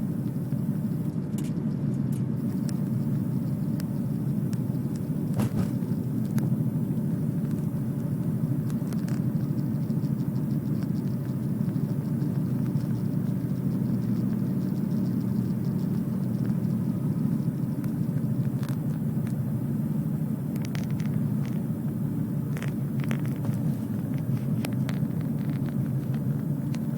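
Steady rumble of a car on the move, heard from inside the cabin: engine and road noise, with a few faint clicks scattered through it.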